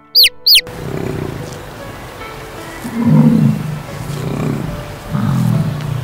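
Two short, high, falling chick peeps over soft music at the very start, then bison grunting: low grunts about three times, each lasting under a second, over outdoor background noise.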